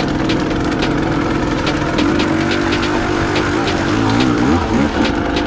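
Dirt bike engines revving up and down as the bikes ride through a flooded trail.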